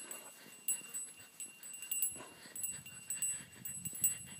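Dog's metal collar tags jingling in short, irregular bursts as the dog moves about, with soft low rustling from about halfway on.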